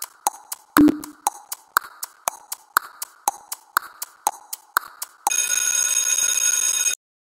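Countdown-timer sound effect: a clock ticking about twice a second with fainter ticks between, each tick ringing briefly, and one louder knock about a second in. About five seconds in, a steady ringing alarm tone sounds for nearly two seconds as the time runs out, then stops abruptly.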